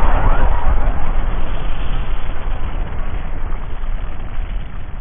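Cold-spray gas pooled in a steel bucket burning after ignition: a loud, rushing whoosh of flames that slowly dies down.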